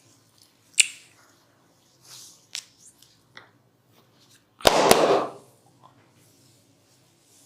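Hands working bare skin during a barber's massage: soft rubbing swishes and a few sharp clicks, then a louder pair of smacks with a short burst between them about five seconds in.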